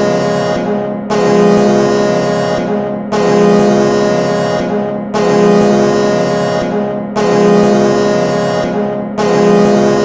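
Chicago Blackhawks goal horn of 1990–1994, a real air horn sounding a chord of low tones in long blasts about two seconds apart, each cut short by a brief gap before the next.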